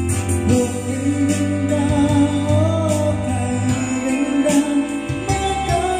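A karaoke song played by an HDT Premier-98d karaoke DVD player through its speakers, with a singing voice over the backing music.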